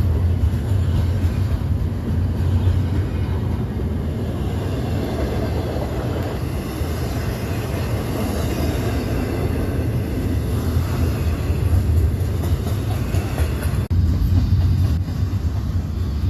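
A train rolling past, a steady, unbroken heavy noise of railcars on the track that stops abruptly at the end.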